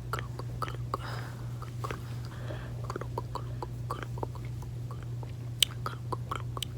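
Close-up gum chewing and wet mouth sounds: irregular sticky clicks and smacks, with one sharper pop near the end, over a steady low electrical hum.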